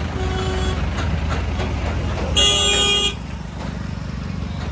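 Vehicle horn honking twice, a short fainter toot near the start and a louder, longer blast about two and a half seconds in, over a steady low rumble of heavy vehicle engines.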